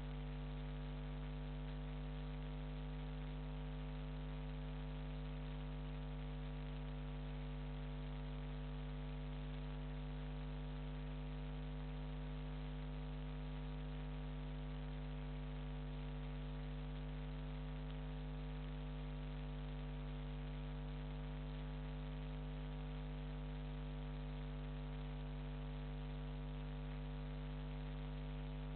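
Steady electrical mains hum at 50 Hz with a ladder of higher overtones over a faint hiss, unchanging throughout.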